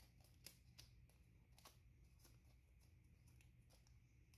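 Near silence with faint crinkles and ticks from a strip of paper masking tape being pressed and smoothed onto a pistol's metal frame by nitrile-gloved fingers, about half a dozen small sounds spread through it.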